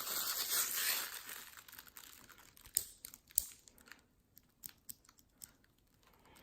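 Wrapping crinkles as it is handled and unwrapped for about the first two seconds. Then come a few scattered light clicks and taps from handling a small metal multi-tool.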